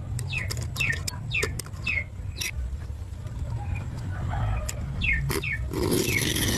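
Chicks peeping: a run of short, high chirps, each falling in pitch, a few a second, over a steady low rumble. A rushing, scraping noise comes in near the end.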